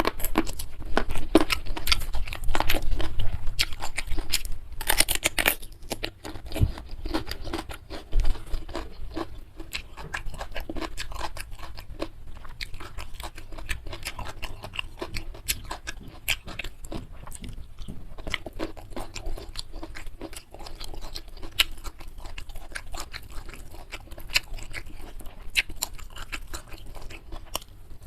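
Close-miked chewing and crunching of a mouthful of food, a dense run of small wet clicks and crunches, loudest during the first few seconds.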